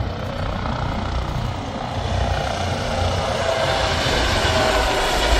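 Aircraft engine noise from a display flight, steady and growing louder as the aircraft approaches.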